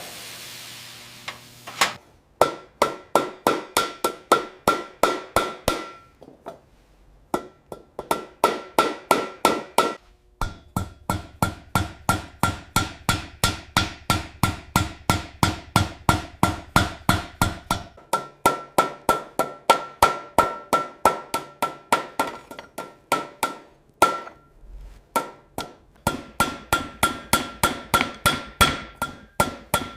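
Small hammer tapping rapidly on metal, about three or four strikes a second, each with a short ringing note. The strikes start about two seconds in and come in long runs broken by brief pauses.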